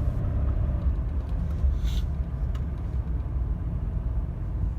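Mercedes-Benz W124 engine pulling under part throttle, gas pedal about halfway down, heard from inside the cabin as a steady low rumble with road noise.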